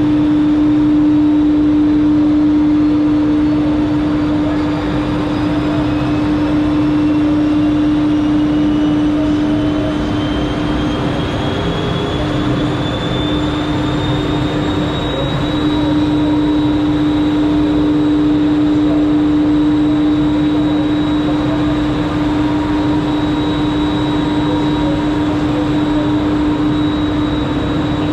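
Mount Hakodate Ropeway's drive machinery running loudly in its machine room: a steady hum with a high whine that rises slowly over about the first half, then holds steady.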